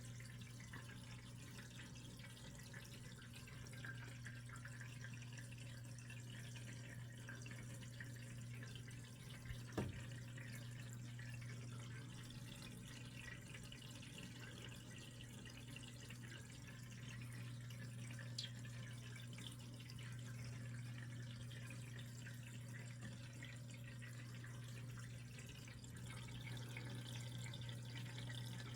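Aquarium water trickling and dripping faintly over a steady low hum, with one sharp click about ten seconds in.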